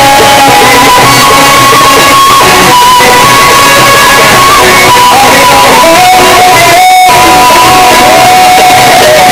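Loud amplified music from a Sufi inshad band, with a melodic instrument holding long, slightly wavering notes.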